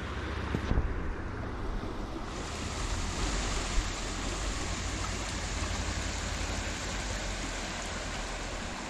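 Small shallow creek running, a steady rush of water that grows brighter about two seconds in, with a low rumble of wind on the microphone underneath.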